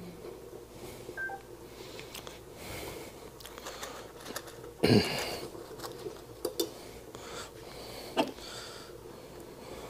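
Metal clanks and clicks from handling a stainless saucepan of near-boiling dye water on an electric hot plate: one loud clank about five seconds in, a few smaller clicks after it. A faint steady hum runs underneath, and a couple of short electronic beeps sound about a second in.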